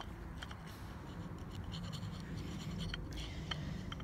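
A piece of rock scratching against a wooden stick as marks are engraved into it, in small uneven scrapes.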